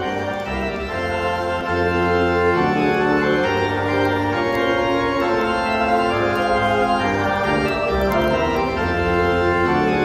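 Background music: sustained organ-like chords held over a bass line that changes note about once a second.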